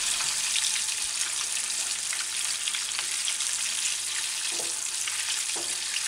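Floured chicken pieces frying in hot oil in a saucepan: a steady sizzle with scattered small crackles.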